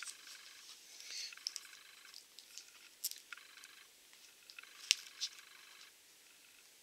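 Faint paper-and-plastic handling noise as a manga volume is picked up and its pages are leafed through, with light rustling and crinkling and a few sharp ticks and taps. The sharpest tick comes about five seconds in.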